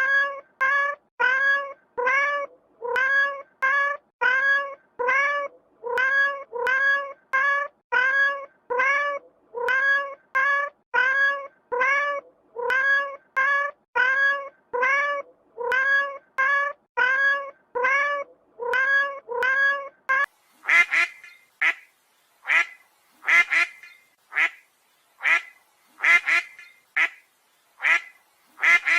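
A domestic cat meowing over and over in a quick, even run of short, identical meows. About twenty seconds in it gives way to a duck quacking repeatedly.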